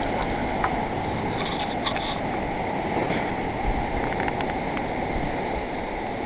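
Sea surf breaking and washing against coastal rocks, a steady rush of noise with a few faint ticks.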